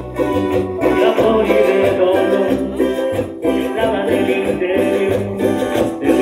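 A live tropical dance band playing through the stage sound system, with a steady bass beat under keyboard and guitar.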